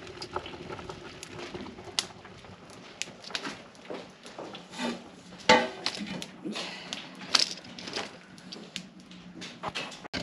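Cooking at a wood-fired hearth: scattered clicks and knocks of metal pots and utensils, with one louder ringing clank about halfway through.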